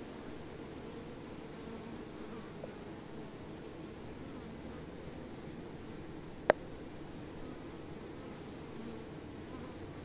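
A cluster of honey bees on an open comb humming steadily, a low even drone with no words. A thin steady high tone runs above it, and a single sharp click sounds about six and a half seconds in.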